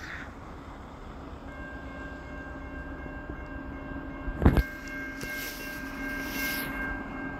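Approaching Amtrak diesel-electric locomotive sounding its horn in one long steady blast, starting about a second and a half in, over the low rumble of the train. A brief loud thump comes about four and a half seconds in.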